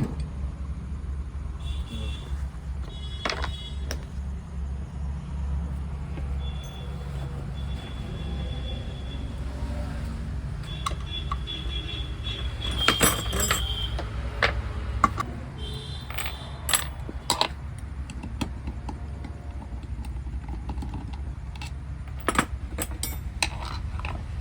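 Metal tools and engine parts clinking and scraping now and then while an engine's oil pump is being taken apart. Under them runs a steady low hum, with a few short high squeaks.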